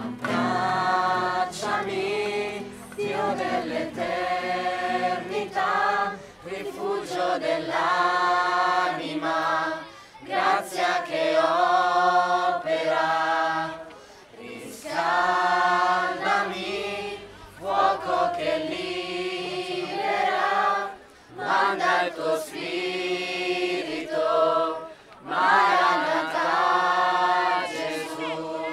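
A group of young men and women singing together without instruments, in short phrases with brief breaks between them.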